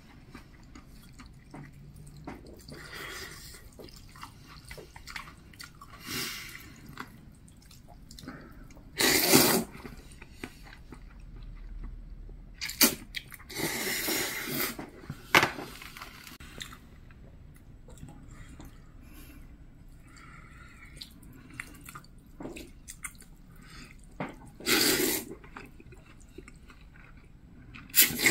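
A man slurping noodles from a bowl, with chewing between the slurps. There are several short, loud slurps spread through, the loudest about nine seconds in.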